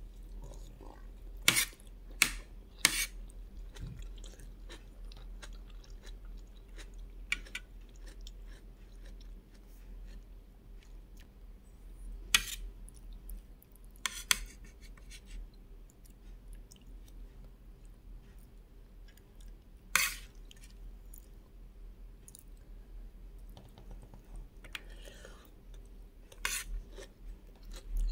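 Close-miked mouth sounds of chewing soft rice, fried egg and tomato. Now and then a metal spoon clicks and scrapes sharply against the plate, a few times near the start and a few times later on.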